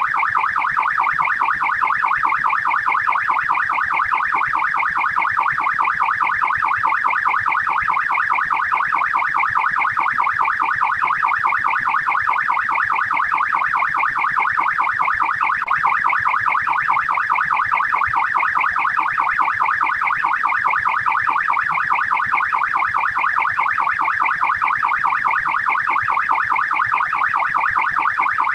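Australian police car siren in fast yelp mode: a rapid, unbroken up-and-down wail repeating several times a second at a steady level.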